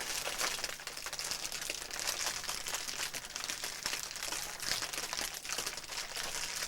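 Paper being crumpled and worked by hand in dense, continuous fine crackling: a foley artist's imitation of a small fire crackling.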